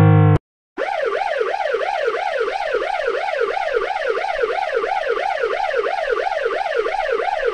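Ambulance siren in a rapid yelp, its pitch sweeping up and down about three times a second.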